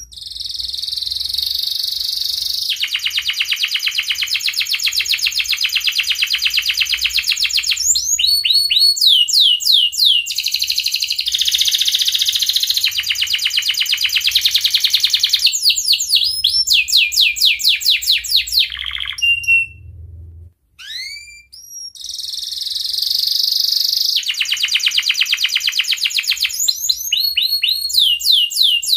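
Male domestic canary in breeding condition singing: long, rapid, loud trilled phrases and rolls, with a short break about two-thirds through filled by a few single upswept chirps before the trills resume.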